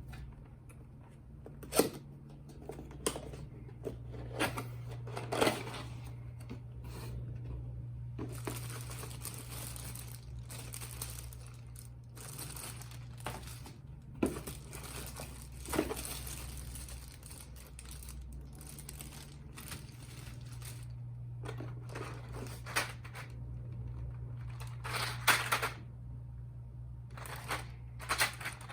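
Keyboard packaging being handled and opened: crinkling plastic, tearing and irregular knocks and clicks of the box, over a steady low hum.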